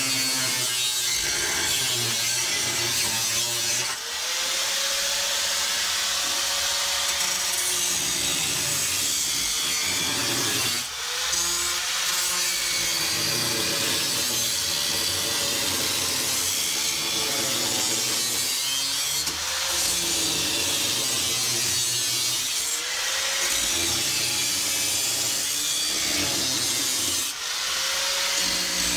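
Handheld angle grinder with a cut-off wheel cutting through the sheet-steel cab floor of a Nissan Hardbody D21 pickup, running loud and steady under load. About five times the cut eases off briefly and the motor's whine rises back up before it bites again.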